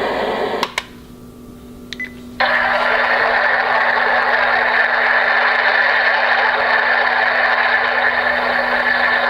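Homedics SoundSpa white noise machine playing a steady rushing hiss that cuts off with a click about a second in. After a short, quieter gap with another couple of clicks, a different, brighter steady hiss starts abruptly.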